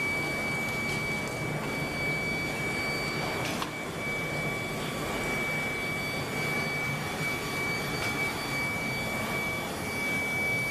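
Steady foundry machinery noise near a melting furnace: a constant high-pitched whine over a broad, even roar.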